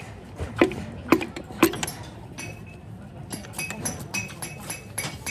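Metal parts and tools clinking: a few sharp knocks, then from about two seconds in a quick run of short ringing metallic taps, several a second.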